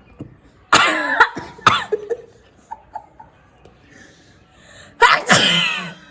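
Coughing fits set off by snuff taken into the nose: two sharp coughs close together about a second in, then a longer, louder cough near the end.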